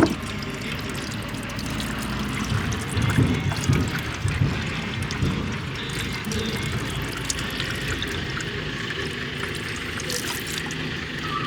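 Diesel fuel trickling slowly out of removed excavator fuel filters, a steady dribble; the slow drain fits filters that seem pretty plugged.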